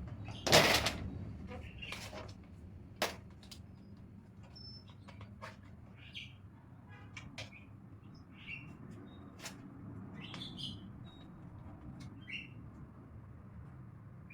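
Scattered clicks and knocks of things being handled, with one loud clatter about half a second in and a sharper knock about three seconds in, over a low steady hum; several short high chirps are heard in the second half.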